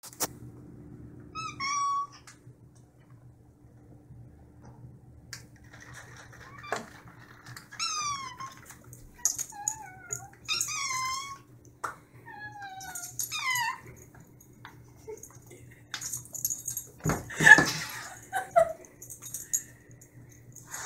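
Cats meowing insistently, begging for whipped cream: many short meows that rise and fall in pitch, several in quick succession. A short, loud burst of noise comes a few seconds before the end.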